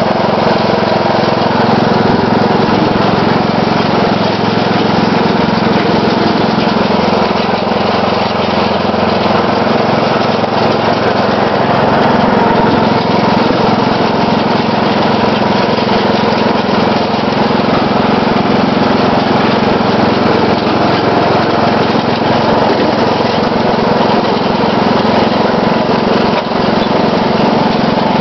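Riding lawn mower's 12.5 hp Briggs & Stratton single-cylinder engine running steadily and loudly while the mower is driven along.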